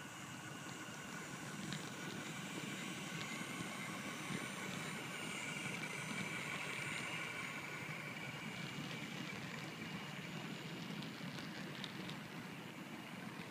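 HO-scale model train running past: the motors of two GP40 diesel model locomotives whine faintly, and the freight cars' wheels rumble steadily over the track with scattered clicks that are more frequent near the end.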